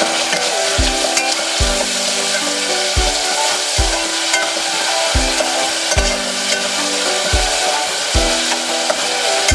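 Onion, tomato and curry leaves frying in oil in a pan, a steady sizzle with stirring. Background music with a steady beat of deep thumps runs under it.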